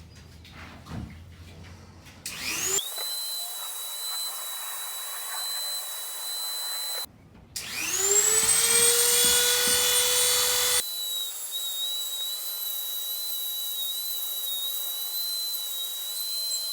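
Dremel rotary tool with a cone bit whining at high speed, grinding out the inside of a deer-antler ring to enlarge it. It spins up about two seconds in and runs steady, stops briefly near seven seconds, spins up again louder and higher, then settles back to a steady whine.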